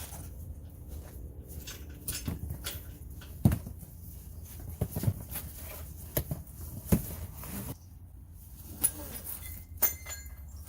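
Irregular knocks, taps and rustling from unpacking and handling boxed engine parts and packaging, over a steady low hum.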